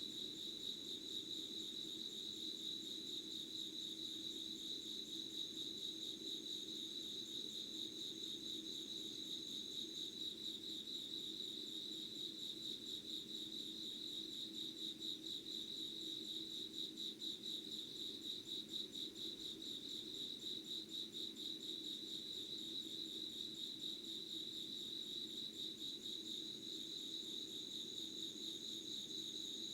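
Insects singing in a steady night chorus: a dense, fast-pulsing trill with a thinner, higher trill that drops out about a third of the way in and comes back near the end. A faint low steady hum lies underneath.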